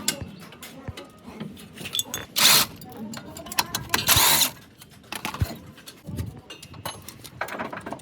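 Workshop tool sounds from a disc brake job: scattered clicks and knocks, with two short loud hisses, one about two and a half seconds in and a longer one about four seconds in.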